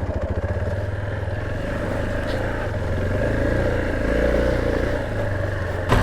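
Motorcycle engine running at low, fairly steady revs while the bike is ridden slowly over rough dirt track, getting louder right at the end.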